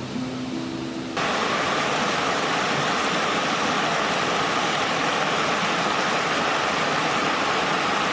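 Steady rushing water, like a stream or small waterfall, that cuts in suddenly about a second in, after a few held low tones.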